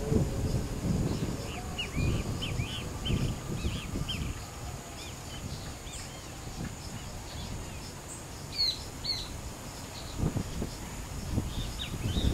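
Wild birds calling in quick, short chirps, a flurry in the first few seconds and again near the end, with two louder higher calls about two thirds of the way through, over wind gusting on the microphone.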